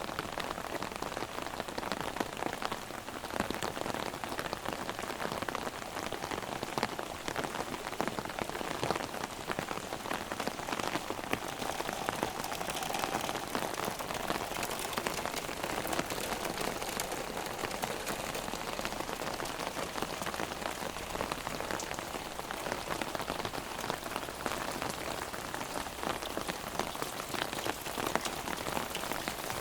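Heavy rain drumming on an umbrella held overhead: a dense, steady patter of countless drops.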